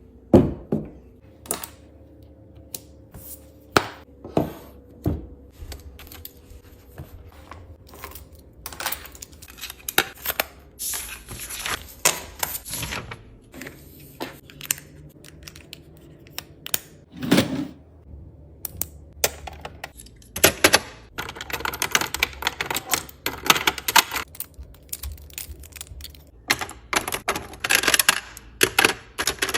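Desk items being handled and set down while a study desk is tidied: a string of irregular taps, clicks and knocks, with several longer stretches of scratchy rubbing noise.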